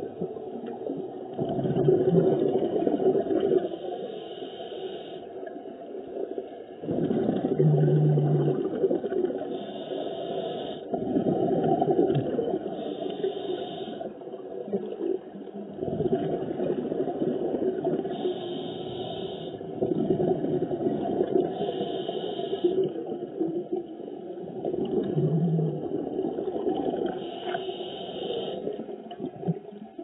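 Muffled underwater sound recorded from inside a camera's waterproof housing: a bubbling rumble that swells and fades about every five seconds, in the rhythm of a scuba diver's exhaled bubbles, with short faint hisses in between.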